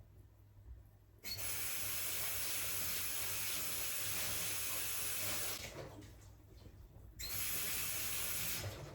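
Water running from a tap in two runs: about four seconds, a short pause, then about a second and a half more.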